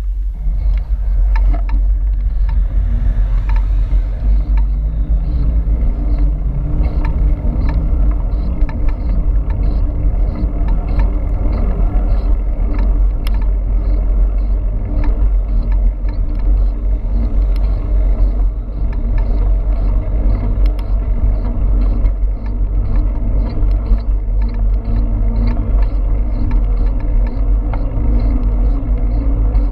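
Wind buffeting the microphone of a handlebar-mounted camera, with tyre noise on a concrete road, as an e-bike rides at speed: a loud, steady low rumble. Faint, regular ticks sound about twice a second.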